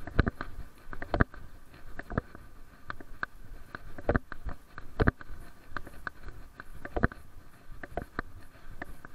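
Footsteps of a person walking on a concrete sidewalk, picked up through a body-worn camera as an even run of knocks at about one step a second.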